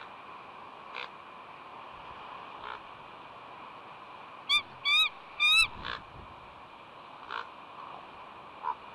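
Female bald eagle on her nest giving three loud, high calls in quick succession about halfway through, each rising and then wavering, as alarm calls while ravens harass her egg. A few fainter, harsher short calls come before and after, over a steady hiss of wind and surf.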